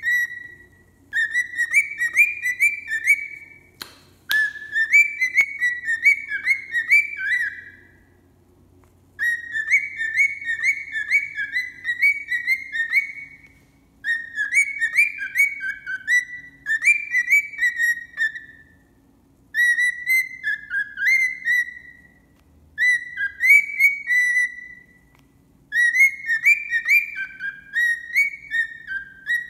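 A cockatiel singing, a warbling song of short rising and falling whistles, delivered in runs of a few seconds with brief pauses between them and an echo from the room. A single sharp click sounds about four seconds in.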